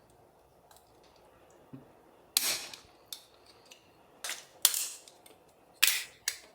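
About five sharp clicks and clatters at irregular intervals, some ringing briefly: small hard parts of an Arizer Solo 3 vaporizer being handled and pulled apart during disassembly.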